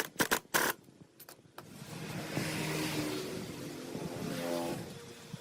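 A few sharp clicks, then a motor vehicle's engine that builds up and rises in pitch as it revs, fading off near the end.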